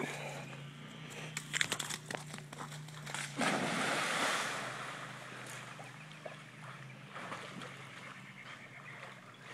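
A few sharp clicks, then a German Shepherd dog plunging into a pond about three and a half seconds in: a loud splash that fades slowly into the quieter sloshing of the dog swimming.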